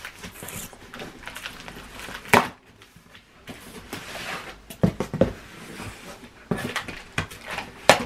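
A cardboard box being opened: scissors cut through the packing tape, then the tape is peeled off and the cardboard flaps are pulled open. Scattered rustles and scrapes with a few sharp cracks, the sharpest about two seconds in.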